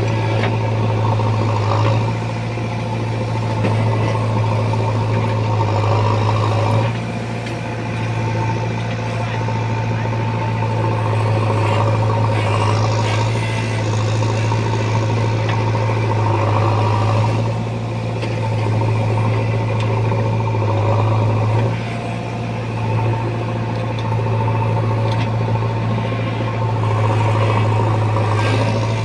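Diesel engine of a JCB 3DX backhoe loader running steadily while it digs and loads mud. Its loudness dips briefly several times as the load on the engine changes.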